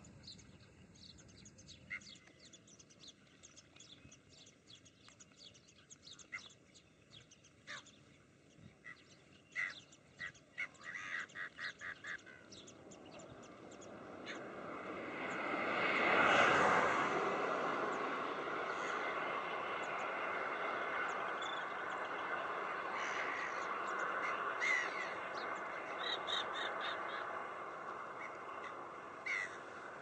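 A flock of gulls calling: short, sharp calls scattered throughout, with a quick run of calls a little before halfway. About halfway a rushing noise swells up, peaks, then settles into a steady hiss under the calls.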